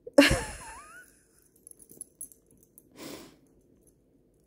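A Frenchton dog gives a sudden loud snort with a squeaky wheeze that wavers in pitch, then a softer huff of breath about three seconds later.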